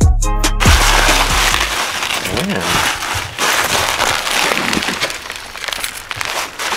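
Bubble wrap and plastic packing crinkling and rustling as it is pulled out of a cardboard box, with a crackly, steady texture. A hip-hop beat cuts off within the first second.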